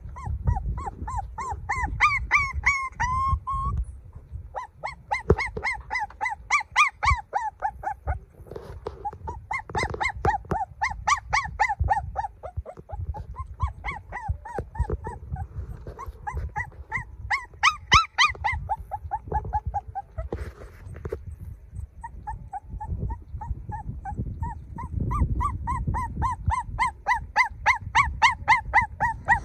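A puppy crying: quick runs of short, high whimpering yelps, many a second, stopping for brief pauses and starting again, over a low rumble.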